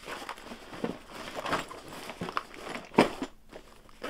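Fabric tool pouches rustling and shifting as they are handled in a plastic Milwaukee Packout box, with crinkling and a sharp knock about three seconds in.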